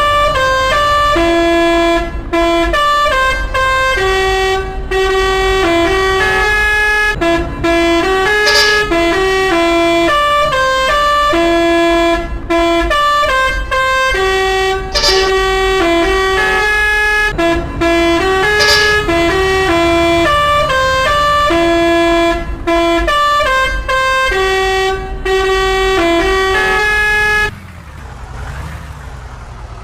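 Telolet musical air horn playing a repeating tune of short stepped notes. It stops suddenly near the end, leaving a low engine rumble.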